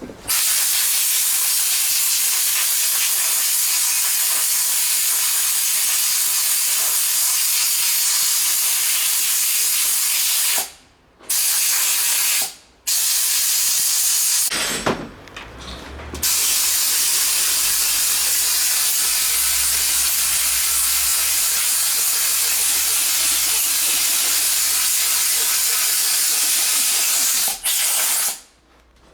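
Loud, steady hiss of a pressurised jet, in four blasts with short breaks: a long one of about ten seconds, two brief ones, then another long one of about twelve seconds.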